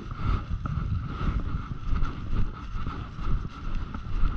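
Footsteps walking through a thick layer of dry fallen leaves, with constant wind and movement rumble on a body-worn microphone.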